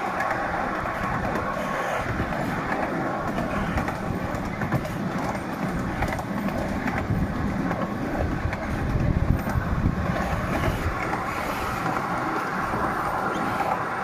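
Ride-on miniature train running along its track, heard from a passenger car: a steady rumble of wheels on the rails, briefly louder about nine seconds in.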